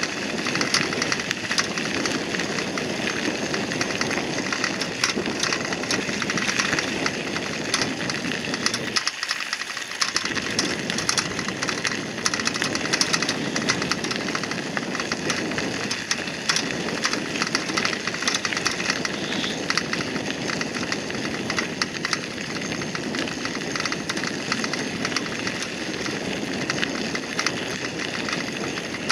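Bicycle tyres rolling over a gravel path: a steady crunching hiss full of small crackles and rattles, its low rumble dropping out briefly about nine seconds in.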